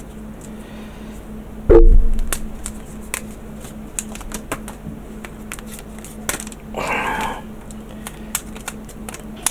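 Light clicks and taps of small cardboard pieces and a rubber band being fitted around a mould on a work surface, with one loud knock just under two seconds in and a short rustle about seven seconds in.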